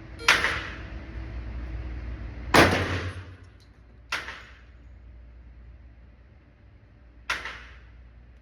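Four handgun shots fired at an indoor range, unevenly spaced, each with a short echoing tail; the second shot is the loudest.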